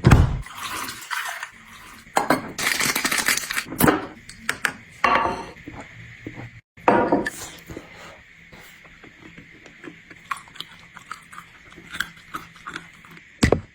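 Dishes and cutlery being handled, clinking and clattering, with a few louder clatters in the first half and quieter light clicks after.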